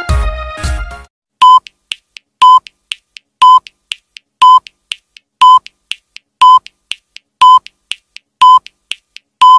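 Background music stops about a second in, then a countdown timer beeps: one short, high electronic beep every second, with faint ticks between the beeps.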